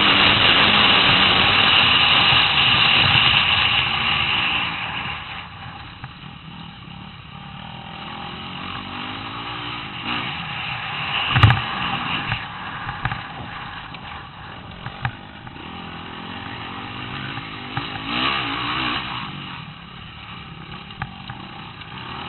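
Dirt bike engine heard on board, loud under throttle for the first few seconds, then dropping back to a lower running sound. There is a sharp knock about eleven seconds in, and the engine picks up again briefly near eighteen seconds.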